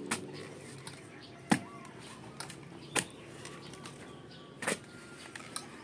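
A metal shovel striking and scraping dirt as soil is tossed into a hole, about five sharp hits roughly every second and a half, the second the loudest.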